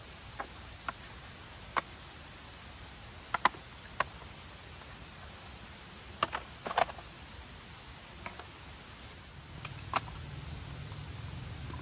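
About a dozen sharp clicks and taps, irregularly spaced, from small hard objects being handled, over a steady low background. A steady low rumble sets in near the end.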